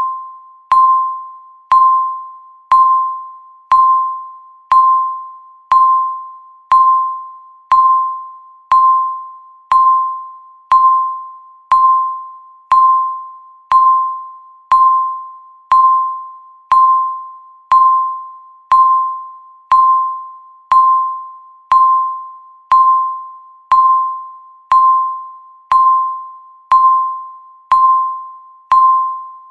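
Countdown timer's electronic beep sounding once a second, each beep the same single pitch, starting sharply and ringing briefly before fading, ticking off the seconds.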